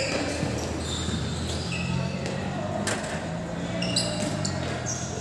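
A football being kicked and bouncing on an indoor court floor, with two sharp knocks about three and four seconds in. Shoes give short high squeaks, and voices sound in the background of a large hall.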